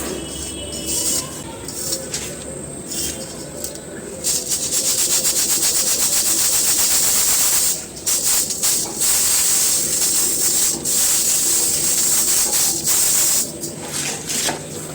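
Dry, soft crumbly cones being crushed and crumbled, a dense crunching crackle. It starts as scattered crackles, becomes a steady, loud crunch about four seconds in, breaks off briefly a few times and eases near the end.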